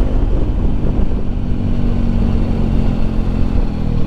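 Bajaj Pulsar RS 200's single-cylinder engine on its stock exhaust, running at steady riding revs with the note sagging slightly near the end.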